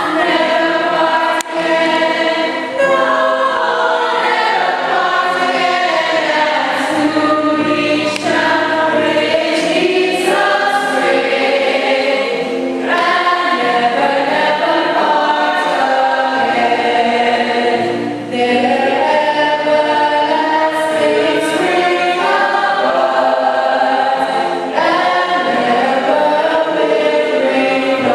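A choir singing a hymn, several voice parts in harmony, phrase after phrase with short breaks between them.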